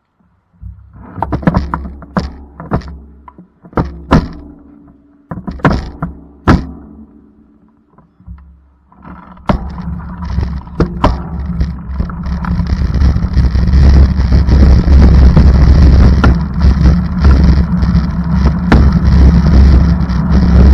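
A series of sharp knocks and thunks over a low engine hum, then from about nine seconds the vehicle moves off and its engine and road noise build into a loud, steady rumble.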